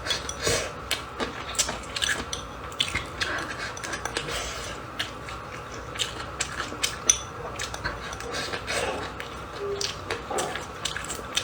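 Eating at the table: irregular light clicks and taps of chopsticks against a bowl, one or two a second, over a faint steady hum.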